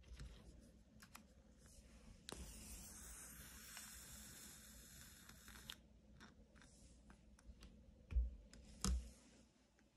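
Electric arc lighter lighting a candle in a glass jar: a few clicks, then a steady hissing buzz of the arc for about three and a half seconds. Two dull thumps come near the end.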